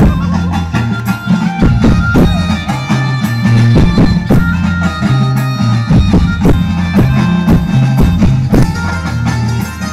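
Loud garba folk music played over a PA sound system, with a steady drum beat, deep bass notes and a melody line on top.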